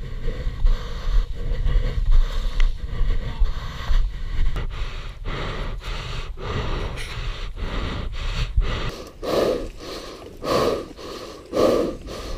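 A person scrambling over rocks and loose scree: scuffs and steps on stone over a low rumble on the close camera microphone, then about four heavy breaths roughly a second apart near the end.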